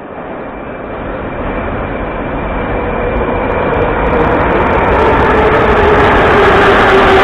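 Moscow metro 81-717.5M "Nomernoy" train pulling into the station. It grows steadily louder as it approaches, with a whine that slowly falls in pitch as it slows.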